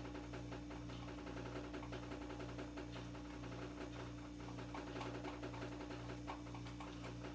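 A utensil stirring thick condensed milk and fruit dessert powder in a small glass bowl, with faint repeated scraping and light clicks against the glass, over a steady low hum.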